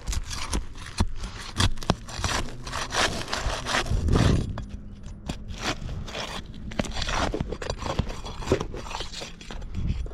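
Irregular scraping and crunching of brittle roof shingles as they are worked loose, with a louder low rub about four seconds in.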